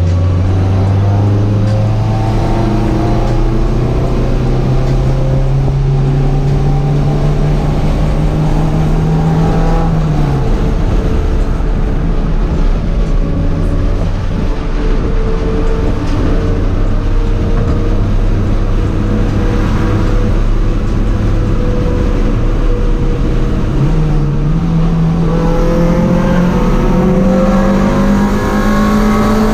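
Honda Civic hatchback's four-cylinder engine heard while driving: it pulls with a slowly rising pitch for about ten seconds, drops as the driver lifts or shifts, holds a steady cruise, then climbs again near the end.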